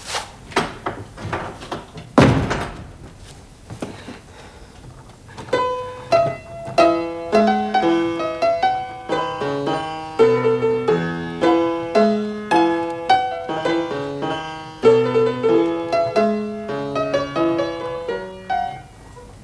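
A few knocks and then a heavy wooden door slamming shut about two seconds in. From about five seconds in, a piano plays solo, a melody over bass notes and chords, each note struck and dying away.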